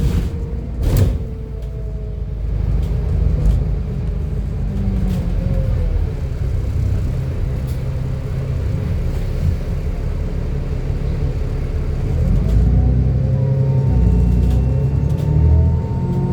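Alexander Dennis Enviro400 double-decker bus's diesel engine running under way with a steady high turbocharger whine. The whine is clear at the start, fades, then returns after about twelve seconds, when the engine note rises as the bus pulls away. A sharp knock about a second in.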